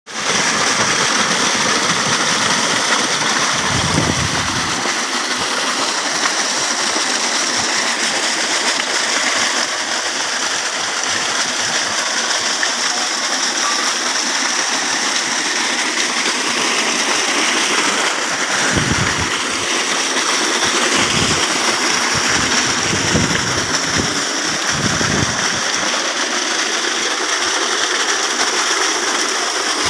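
Steady, loud rush of water gushing from the 4-inch delivery pipe of a 5 hp Marquis irrigation pump and splashing into a flooded basin.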